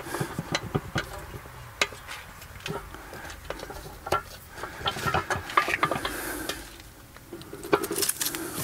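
Irregular metallic clicks, taps and clinks of hands working the hose fittings and hub of a wall-mounted Eley metal garden hose reel, checking that everything is tightened in place.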